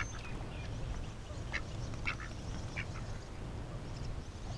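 Ducks quacking: a handful of short, separate quacks spread through, over a low steady rumble.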